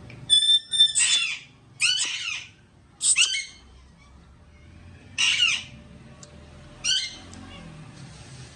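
African grey parrot giving a series of short, high-pitched squawks and whistled calls, about six of them over seven seconds, the longest near the start.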